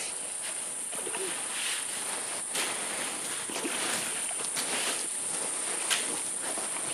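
A long-handled shovel scraping and scooping wet sand in shallow creek water, in irregular strokes with splashing, the sharpest stroke about six seconds in. A steady high insect drone runs underneath.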